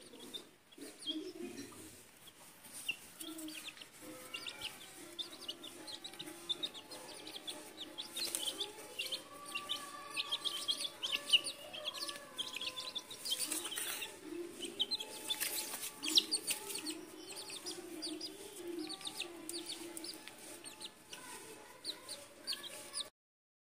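Domestic chickens calling while they feed: a hen clucking low and repeatedly under a steady stream of short, high peeps from young chicks, with a few sharp taps along the way.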